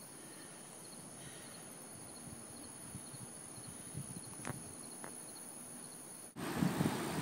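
Faint outdoor ambience with a steady, high-pitched insect drone and a few faint ticks. About six seconds in it cuts off suddenly and a much louder low rushing noise takes over.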